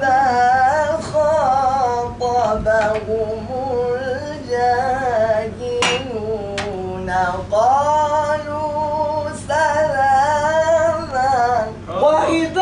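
A man's voice chanting Quranic verses in a melodic recitation style, drawing out the syllables into long, wavering, ornamented notes with short breaths between phrases. A sharp click comes about six seconds in.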